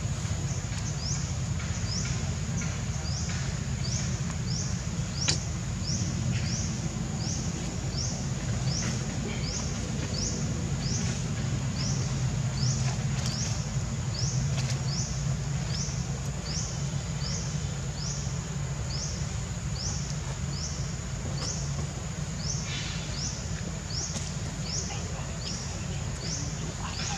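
Outdoor insect ambience: a steady high-pitched drone with a short rising chirp repeating evenly about every two-thirds of a second, over a constant low rumble. A single click about five seconds in.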